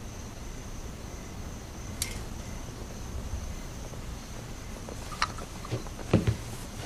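Quiet background ambience with a faint steady high-pitched tone, a single click about two seconds in, and a few light knocks and clicks near the end.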